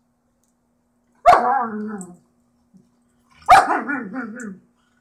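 A dog barking twice during rough play-wrestling with another dog. Each bark starts sharply and drags out for nearly a second, falling in pitch, and the two come about two seconds apart.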